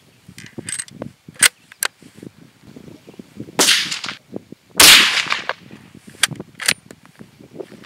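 Two loud gunshot reports about a second apart, the second the louder, from rifle fire. Small sharp clicks come before and after them.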